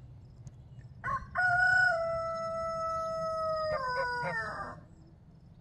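A rooster crowing once: a long call held on one steady note for a couple of seconds, breaking into a few falling notes at the end.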